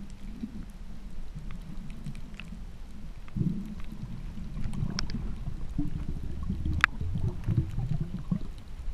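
Muffled underwater water noise through a waterproof camera housing: a low rumble that swells and eases in surges, with a few faint ticks and one sharp click nearly seven seconds in.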